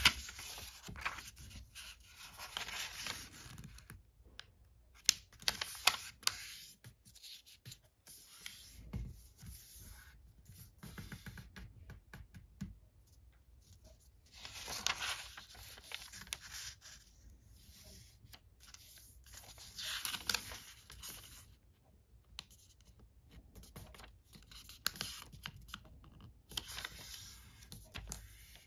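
Origami paper rustling and sliding on a tabletop as it is folded and creased by hand, in several separate bursts of crinkling with quieter gaps between.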